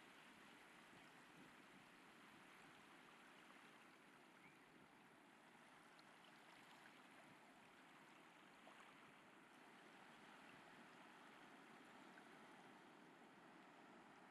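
Faint, steady wash of ocean waves on the shore.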